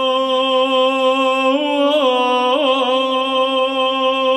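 A solo male voice chanting in Orthodox liturgical recitative, holding one long sung note with a few small pitch turns, on the closing doxology of the Epistle reading.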